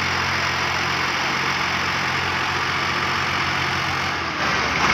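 Massey Ferguson 240 tractor's three-cylinder diesel engine running steadily at a low, even note, turning rougher about four seconds in.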